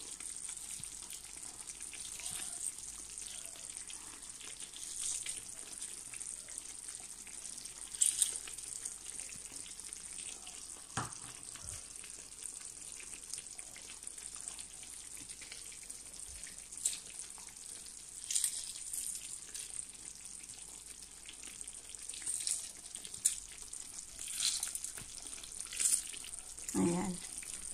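Sardines in sauce simmering and sizzling in a frying pan: a steady hiss with scattered pops and crackles.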